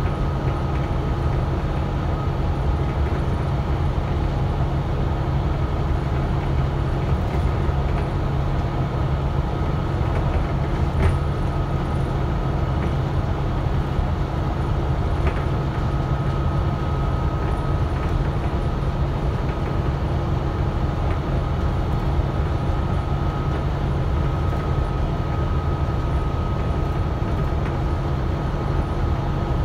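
Inside a Volvo B9TL double-deck bus under way: the 9.4-litre six-cylinder diesel runs steadily, with road and body noise and a steady high whine over it. There is a single knock or rattle about eleven seconds in.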